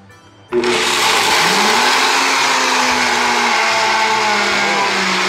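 Blendtec 575 blender switching on at high speed about half a second in, spinning up and then running loud and steady as it grinds dry roasted peanuts into peanut butter in its small Twister jar.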